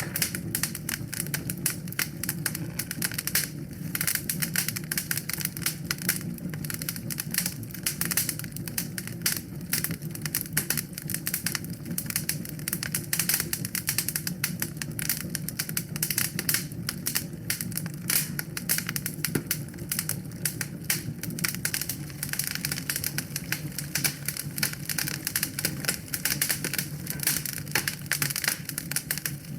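Wood fire burning in a fireplace, crackling and popping without a break over a low steady rumble of flames.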